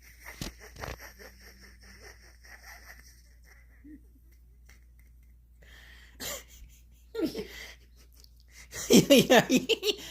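A person laughing: faint, quick, stifled pulses at first, then a loud fit of rapid laughs in short bursts near the end.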